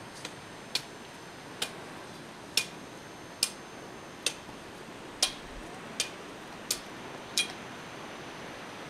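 A series of about ten sharp clicks, evenly spaced a little under a second apart.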